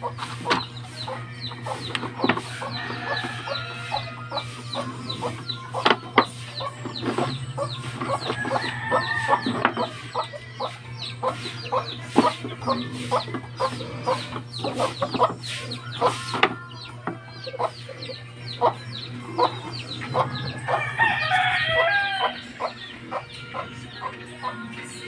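Free-range chickens clucking, with a rooster crowing once about 21 seconds in, over a steady low hum and many light clicks and taps.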